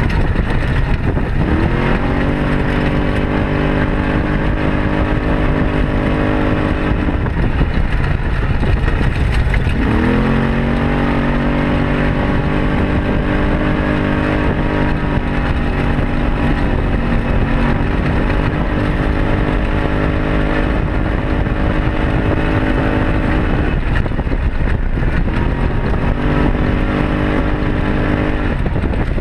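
Arctic Cat Wildcat side-by-side UTV engine under way. Three times its revs climb quickly and then hold steady as the vehicle pulls along. Twice, about seven and twenty-four seconds in, the engine note falls away and leaves only a rushing noise.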